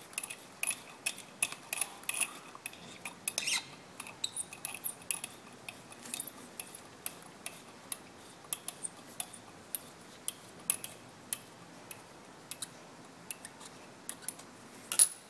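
Small tap in a hand tap wrench being turned in a small hole in a part held in a lathe chuck, giving irregular light metallic clicks and ticks, several a second, with a sharper click about a second before the end.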